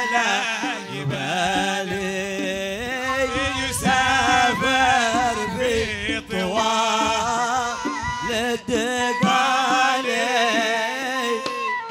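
Men singing a Hadrami devotional chant in the Middle Eastern style, with long ornamented, wavering notes. Small hand drums beat underneath, most strongly from about three seconds in.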